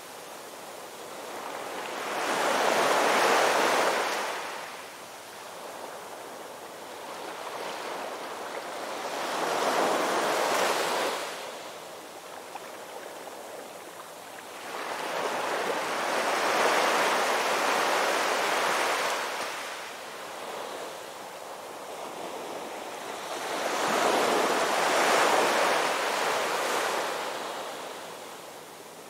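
Ocean surf breaking on a beach: four waves, one about every seven seconds, each rising to a rush of surf and fading back to a softer wash.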